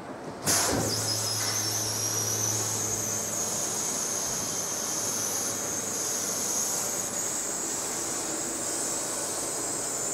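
Vehicle lift lowering a car: a steady hiss with a high whine, starting suddenly about half a second in, with a low hum under it for the first few seconds.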